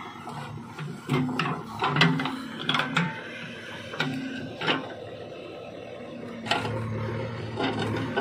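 JCB 3DX backhoe loader digging a trench in stony soil: repeated knocks and scrapes of earth and rock against the steel bucket over the machine's diesel engine and hydraulics. The knocking thins out after about five seconds, and a steadier low drone sets in near the end.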